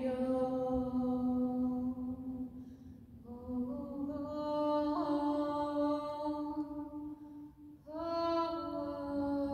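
A woman singing a wordless meditative chant solo in long held notes, three of them with short pauses for breath between. Her voice resonates in the stone church.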